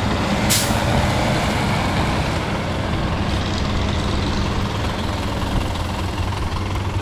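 PAZ bus engine running steadily, with a short hiss about half a second in.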